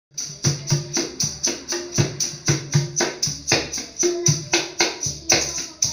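A pair of small hand drums played in a quick, even rhythm of about four strokes a second, low and higher drum tones alternating, each stroke with a bright, ringing high edge. It is a busker's drum introduction, before any singing comes in.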